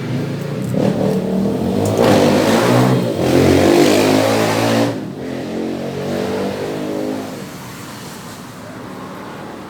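A motor vehicle's engine revving, loudest about two to five seconds in, then fading away.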